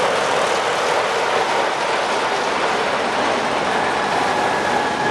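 Class 45 'Peak' diesel locomotive running as it draws its train of passenger coaches past, the coaches' wheels rolling over the rails in a steady, loud rush of noise. A faint thin high tone comes in near the end.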